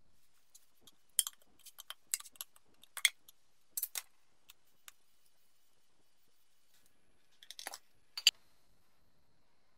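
Paint tins and a plastic mixing cup handled on a metal bench during paint mixing: a string of short, sharp clinks and clicks, most in the first half, with a last loud click near the end.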